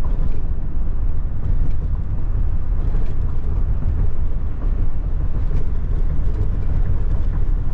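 Wind buffeting the microphone beside moving creek water: a loud, steady low rumble with a rushing hiss over it.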